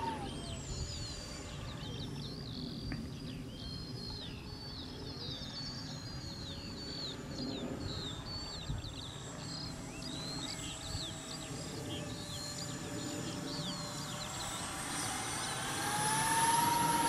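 Electric ducted fan of a 3D-printed RC jet whining in flight: the whine drops in pitch just after the start and stays faint, then rises in pitch and grows louder near the end as the jet comes closer. Birds chirp throughout.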